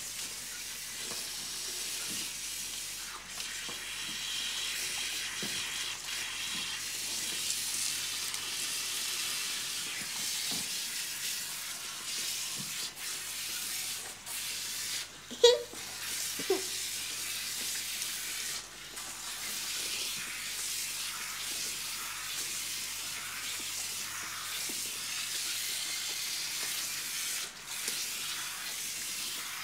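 Water running steadily from a salon rinse spray over a child's hair and into the washbasin, as shampoo is rinsed out. About halfway through there are two short, sharp sounds, a second apart.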